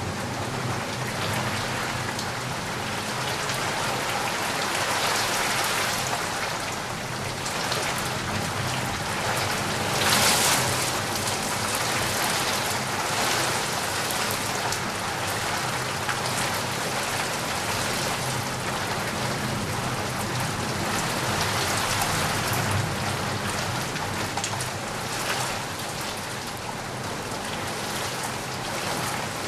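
Steady rainfall, a dense even hiss of drops on surfaces, swelling briefly louder about ten seconds in.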